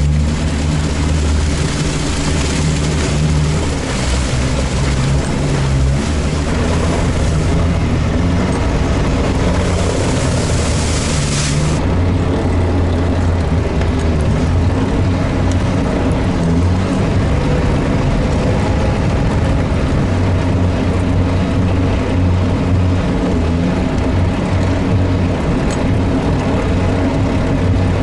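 All-terrain vehicle engine running steadily under load while driving, its note shifting in pitch a few times, with a hissing noise above it that drops away about twelve seconds in.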